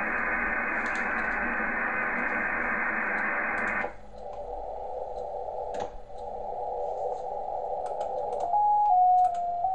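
Softrock Ensemble II software-defined radio receiver audio: steady band-noise hiss through a wide SSB filter on 20 metres. About four seconds in it switches to a narrower, lower-pitched hiss through a CW filter on 30 metres. Near the end a steady tone steps up and down in pitch as the receiver is tuned across a signal.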